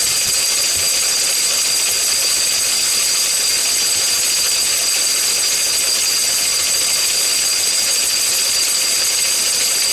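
Lister D single-cylinder stationary engine running steadily while belt-driving a small corn grinder turning empty, with a steady high-pitched whine over the running noise.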